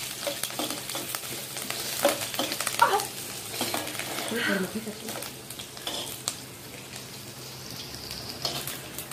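Cumin seeds, grated ginger and green chillies sizzling in a little hot oil in a kadai while being lightly sautéed. A metal slotted spoon stirs them, scraping and clicking against the pan.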